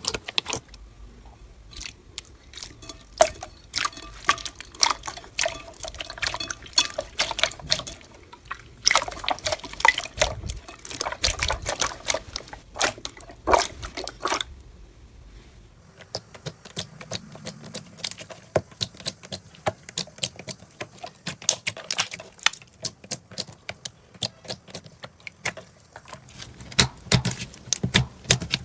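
Slime being squeezed, pressed and stretched by hand, giving dense, irregular wet clicks and sticky pops.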